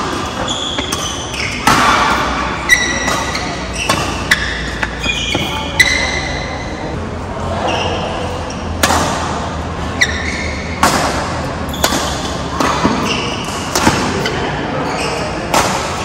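Badminton rally: sharp cracks of rackets striking the shuttlecock every second or two, mixed with short high squeaks of court shoes on the floor and players' voices.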